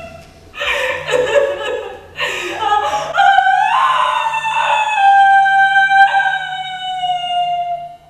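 A woman's voice wailing a high, held note that slowly sinks in pitch. It is broken twice by harsh, noisy cries, then glides up into long held notes that again slowly fall.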